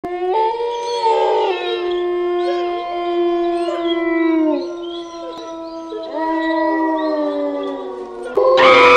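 Several long canine howls overlapping at different pitches, each held steady and sagging in pitch as it dies away, in two waves. A louder sound cuts in just before the end.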